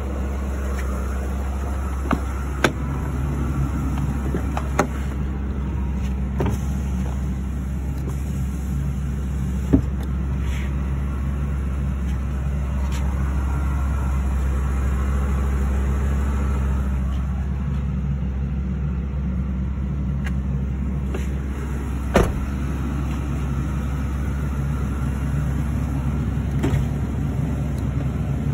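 Ford Excursion's 6.8-litre V10 petrol engine idling steadily, with a few sharp clicks and knocks from doors and trim being handled; one knock late on stands out as the loudest.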